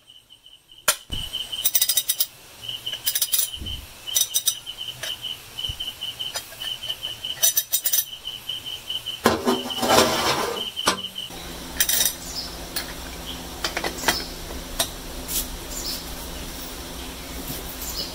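A homemade ratchet wrench built around a motorcycle chain sprocket clicks in short, quick runs as it is worked, with metal clinks as a socket is fitted to it. Crickets chirp behind it until about two-thirds of the way through, when the background changes to a low steady hum.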